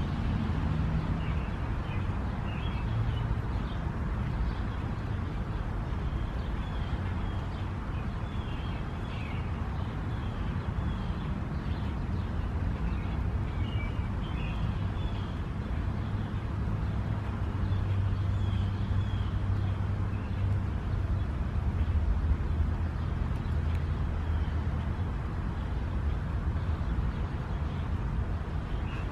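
Steady outdoor background rumble, with a low hum that swells for a few seconds past the middle and faint high chirps scattered throughout.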